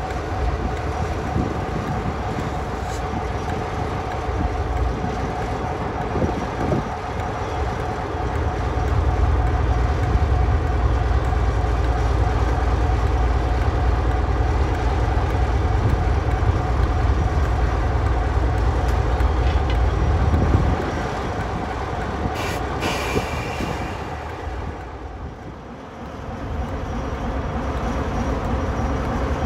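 Class 47 diesel-electric locomotive 47449, its Sulzer twelve-cylinder engine running with a steady drone over a deep rumble. The rumble grows heavier about a quarter of the way in and drops back suddenly about two-thirds through. A short clatter follows, then the sound dips briefly and builds again near the end.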